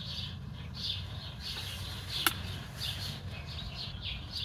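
Birds chirping at sunrise, short high chirps repeating about once or twice a second, over a low steady rumble. A single sharp click comes about two seconds in.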